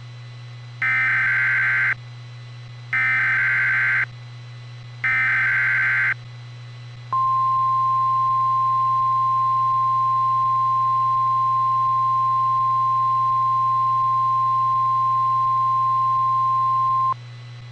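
Emergency Alert System signal from a NOAA Weather Radio broadcast. Three short, harsh, buzzy bursts of SAME digital header data, about a second each, are followed by the single steady 1050 Hz warning alarm tone, lasting about ten seconds and cutting off sharply. A low steady hum runs underneath. Together they announce a severe thunderstorm warning.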